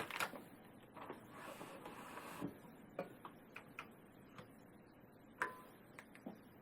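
Faint handling of a Zebra 140Xi3 Plus label printer as label backing is loaded into it: scattered light clicks and taps, a soft rustle about a second in, and a sharper click about five seconds in.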